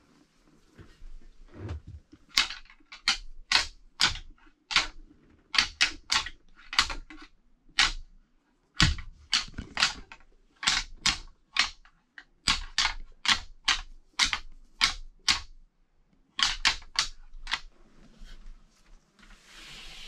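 A pair of black synthetic rattling antlers clacked together in quick, irregular runs of sharp clicks, about two or three a second, with two short pauses. This is antler rattling, which imitates two bucks sparring in order to draw a buck in.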